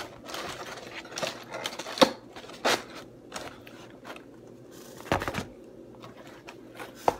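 Scattered taps, clicks and rustling from handling takeout food boxes and packaging, with a few sharper knocks.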